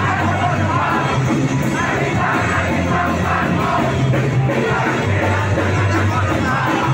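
Live rock band playing loudly, a low bass line changing notes every second or so, with crowd shouts mixed in.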